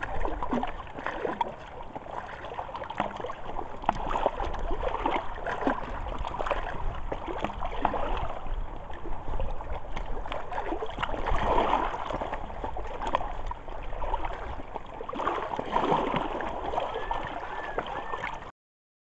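Lake water lapping and sloshing against the shore in strong wind, with wind rumbling on the microphone. It is steady throughout and cuts off abruptly near the end.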